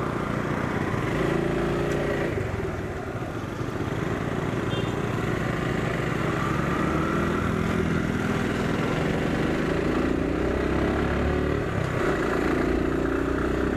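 Motorcycle engine pulling away from a stop and riding on, its pitch repeatedly rising and falling with throttle and gear changes over a steady low rumble.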